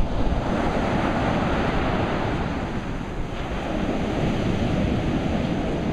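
Ocean surf breaking and washing up a sandy beach in a steady rush, with wind buffeting the microphone in a low, uneven rumble.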